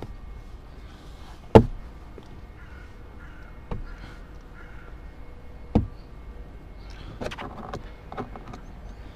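Plastic retaining clips of a Seat Leon Mk3 rear door trim panel popping loose as it is pried off with plastic trim tools: three sharp pops about two seconds apart, the first the loudest, then a quick run of smaller cracks and creaks near the end as the panel edge flexes free.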